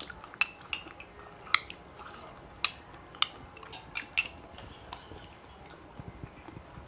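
Metal spoons clinking and scraping against small glass dessert cups: a scattered run of sharp, irregular clinks.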